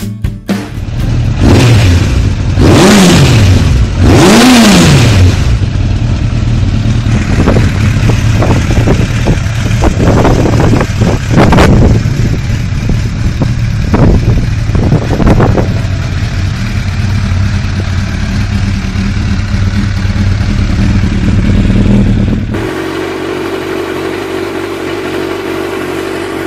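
Suzuki GSX 750 inline-four motorcycle engine revved hard twice, each rev rising and falling, then blipped in quick sharp throttle stabs over a steady idle. After an abrupt change near the end, it idles steadily.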